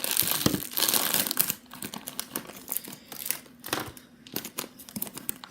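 Slime being squished and stretched by hand, a sticky crackling and popping that is loudest in the first second and a half, then comes and goes in short spells.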